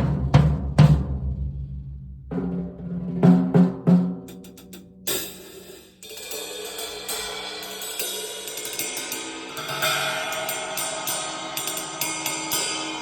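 Drum kit sound check: a few separate drum hits whose pitched tones ring out and fade, then a cymbal crash about five seconds in. Continuous playing follows, with cymbals and hi-hat ringing over a steady pattern.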